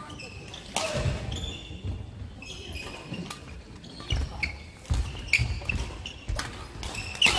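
Badminton rally: several sharp cracks of rackets striking the shuttlecock, with players' shoes squeaking and footfalls thumping on the court floor.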